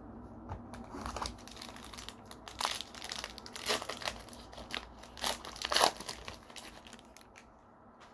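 Foil trading-card pack being torn open and its wrapper crinkled by hand, an irregular run of crackly crinkles with the loudest about six seconds in.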